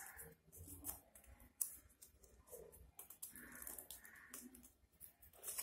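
Faint crinkling and clicking of paper being folded and creased by hand into vein lines on a paper leaf, in short irregular crackles.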